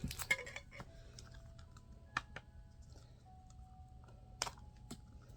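Scattered light clicks and taps of small plastic miniatures and packaging being handled, with two sharper clicks about two and four seconds in.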